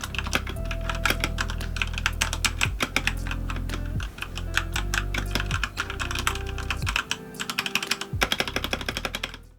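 Fast typing on a computer keyboard, a dense run of key clicks that thins out near the end, over background music with a steady bass line.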